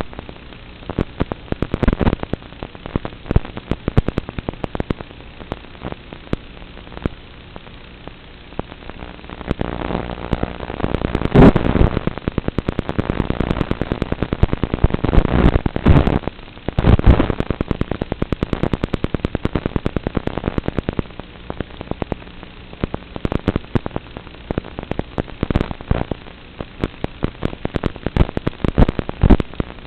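Radio static and crackling from the FPV goggles' analog video receiver, as recorded by the goggle DVR: a steady hiss with dense clicks and pops. The crackling grows louder and thicker from about a third of the way in, peaks twice, then settles back to the lighter crackle.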